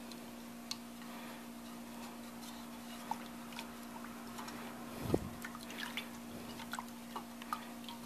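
Wooden spoon stirring a honey-and-water syrup in a metal pot: faint liquid swishing with light ticks of the spoon against the pot, and a duller knock about five seconds in. A faint steady hum runs underneath.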